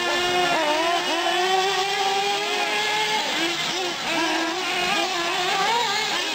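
Several nitro-powered 1/8-scale R/C trucks and buggies with small two-stroke glow engines, running and revving at once. Several engine notes overlap, each rising and falling in pitch as the throttle opens and closes.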